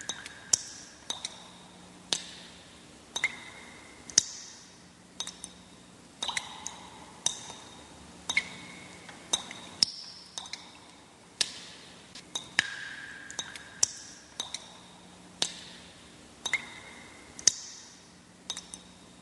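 Sound effect of sharp glassy clinks and pings, about one a second at varying pitches, each with a brief ring.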